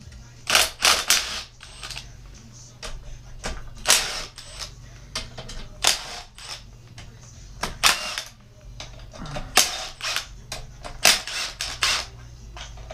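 Cordless Makita 18V impact driver hammering in a string of short rattling bursts, about one every second or two, backing out the side-cover bolts of a Predator 212cc engine.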